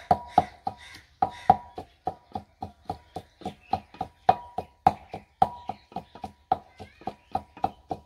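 Garlic and ginger being pounded with a pestle in a mortar: steady, even strokes, about three a second, each with a brief ring.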